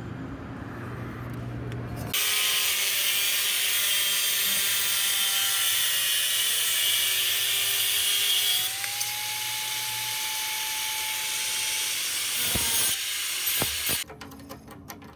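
Handheld angle grinder cutting a steel strip: it starts suddenly about two seconds in with a loud, steady hiss over a motor whine. A little past halfway the whine rises in pitch and the sound gets slightly quieter, then it stops at about fourteen seconds, followed by light clicking.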